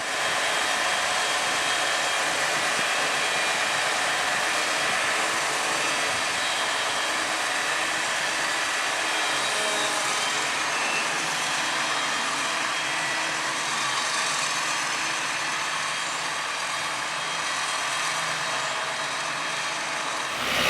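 Steady, unchanging machinery noise from harvesting equipment: an even hiss and hum, mostly high-pitched, with little low rumble.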